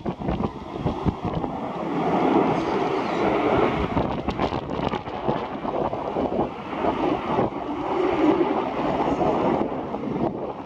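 Strong wind buffeting the microphone in gusts, a rough rushing noise that swells and falls.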